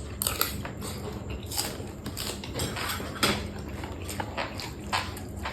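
Close-miked chewing and crunching of papaya salad and raw vegetables, with irregular crisp crunches through the chewing.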